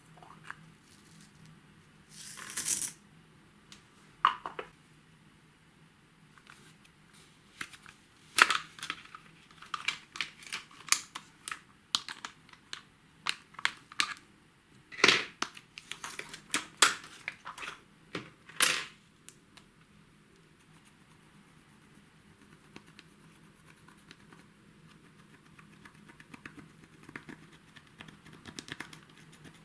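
Hands working sticky slime. There is a short crackly burst early, then a dense run of sharp sticky pops and clicks through the middle, thinning to faint crackles near the end.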